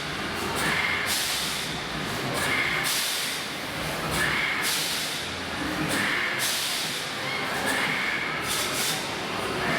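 Fairground ride machinery running, with a hissing whoosh that repeats every second or two over a steady mechanical rumble.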